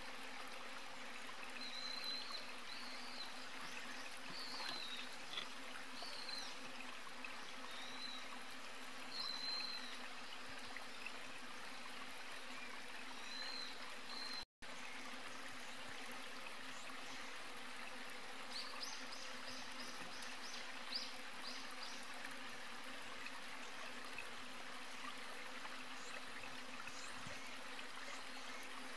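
Outdoor ambience: a steady hiss with short high chirps repeating every second or two, and a quick run of rapid chirps about two-thirds of the way through. The sound cuts out for an instant about halfway.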